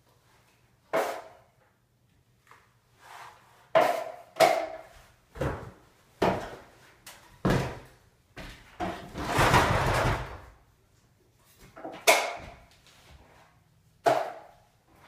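Drywall knife clacking and scraping against a mud pan while joint compound is worked onto a wall: a dozen or so sharp, irregular clacks, with one longer scrape lasting about a second and a half near the middle.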